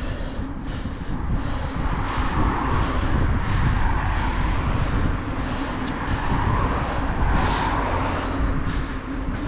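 Wind buffeting the microphone while riding a bicycle along a road. Road noise from passing vehicles swells and fades twice.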